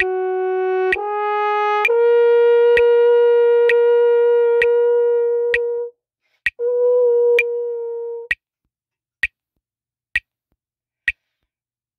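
French horn playing slow held notes: two upward steps, then a long note held about four seconds; after a short break, one more held note that stops about eight seconds in. A metronome clicks steadily about once a second throughout and is heard alone for the last few seconds.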